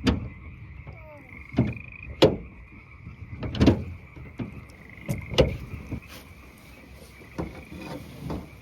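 A steady chorus of frogs calling, cut by about seven sharp thumps with swishy tails, a second or two apart, as the small boat is worked through the water.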